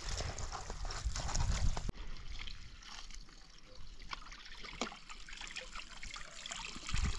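Water trickling and dripping from freshly boiled noodles held in a steel bowl over a pot as they are drained, with scattered small clicks. A low rumble is louder over the first two seconds.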